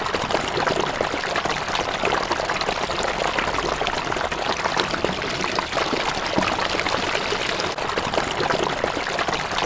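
Steady rush of pouring, splashing water.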